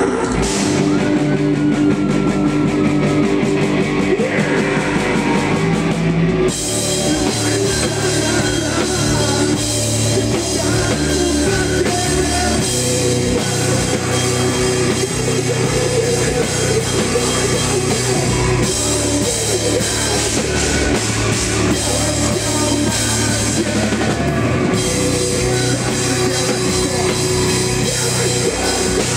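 Heavy rock band playing live, with distorted guitars and drum kit; about six seconds in the sound grows fuller and brighter as the whole band comes in hard.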